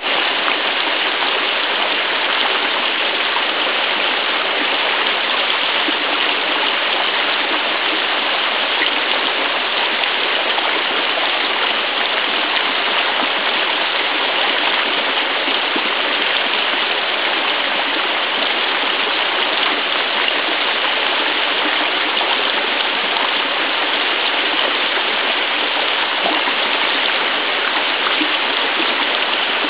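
Mountain stream water flowing steadily, a continuous even rush and burble of moving water.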